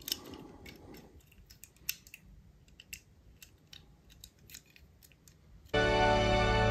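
Faint, irregular small clicks and taps of a die-cast toy car being handled. Near the end a racing scene's soundtrack cuts in abruptly and loud: a steady, pitched race-car engine sound.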